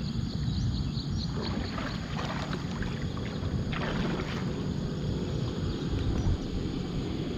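A small rowboat on open water: a steady low rumble of wind on the microphone and boat motion, with two brief swishes of water about two seconds apart.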